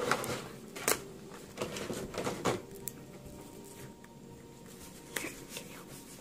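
Plastic packaging of a trading-card collection box being handled: a sharp click about a second in and short bursts of rustling and knocking up to about two and a half seconds, then only faint handling sounds.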